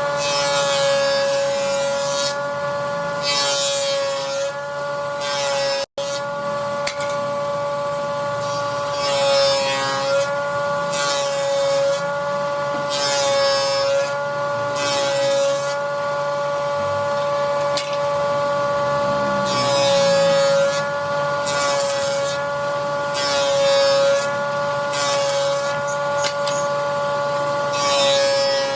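Electric woodworking machine running with a steady high-pitched motor whine. A hiss of cutting comes and goes about every one to two seconds as wood is worked.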